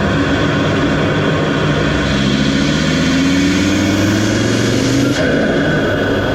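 Audi RS3 8P's turbocharged five-cylinder engine accelerating hard through an 034 Motorsport carbon intake. Its note rises steadily in pitch for about three seconds, then breaks off abruptly about five seconds in.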